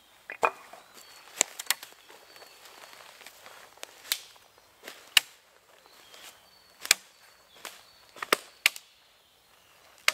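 Sharp, separate cracks of dry wood, about a dozen in all and a few in quick pairs: a hatchet striking and splitting wood on a chopping stump near the start, then dead sticks snapping as they are gathered.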